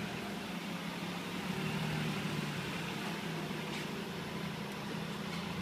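Supercharged Lotus Exige S engine idling steadily through a Larini track exhaust, an even low hum with no revving.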